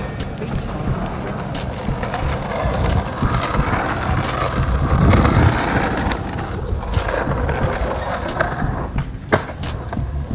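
Riding a bicycle on a paved path: wind buffeting the microphone and wheels rolling over the pavement as a steady, uneven rumble, swelling about halfway through, with a sharp knock near the end.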